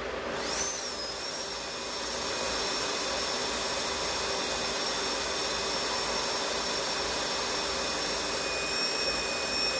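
Small electric blower switched on for cooling. A sharp start with a quick rising whine about half a second in, then a steady whirring hiss of blowing air with a thin high whine, running on.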